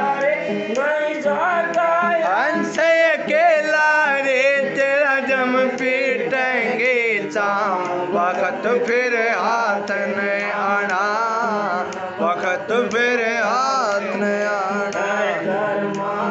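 Man singing a devotional Hindi shabd (hymn) with gliding, ornamented melodic lines over steady held notes.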